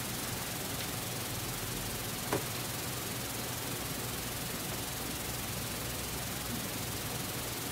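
Steady hiss of background room tone and recording noise, with one short click a little over two seconds in.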